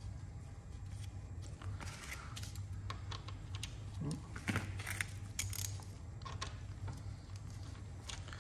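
Scattered light clicks, rattles and rustles of gloved hands handling and fitting small car parts while mounting an air-con condenser, over a steady low hum.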